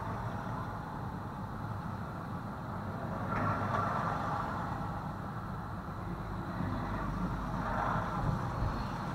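Road noise inside a car driving on a wet street: a steady low rumble from the car with the hiss of tyres on wet pavement, swelling twice, a few seconds in and near the end.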